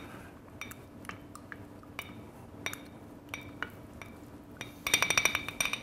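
Stainless steel muddler crushing blackberries and simple syrup in a glass tumbler, its head knocking against the bottom of the glass at intervals with a brief glassy ring. Near the end comes a quick run of rapid clinks.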